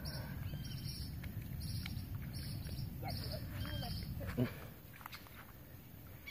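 Riverside outdoor ambience: a low rumble with a high chirp repeating a little under twice a second and a few short calls. A thump comes about four and a half seconds in, after which the rumble falls away.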